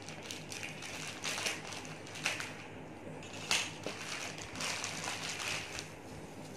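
Clear plastic packaging bag crinkling and rustling as it is slit open with a cutter and handled, in several short bursts with a longer rustle near the end; the sharpest crackle comes about three and a half seconds in.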